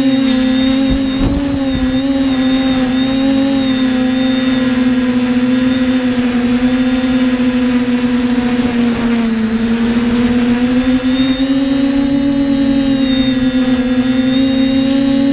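TBS Discovery PRO quadcopter's electric motors and propellers, a steady whine heard from the drone itself, dipping slightly in pitch about nine seconds in and then rising back.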